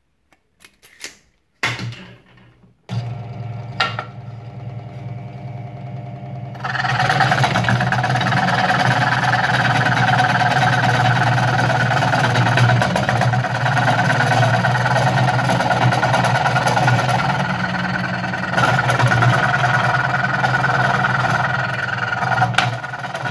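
An electric scroll saw switches on about three seconds in after a few handling clicks, then from about seven seconds its reciprocating blade is cutting through a piece of walnut, a loud steady mechanical run.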